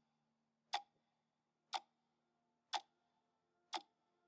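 Sharp, evenly spaced ticks, one a second, like a clock, over a faint steady hum; no wave or water sound.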